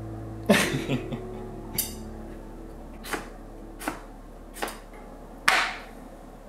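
Chef's knife slicing a lemon on a wooden cutting board: six sharp knocks of the blade meeting the board, roughly a second apart, the first and last the loudest, over soft background music.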